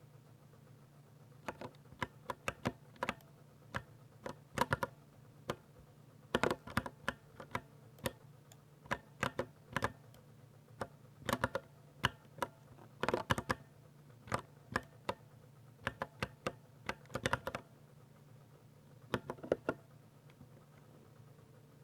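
Typing on a Ducky mechanical keyboard with silver switches: quick runs of sharp key clacks with short pauses between them, over a faint steady low hum.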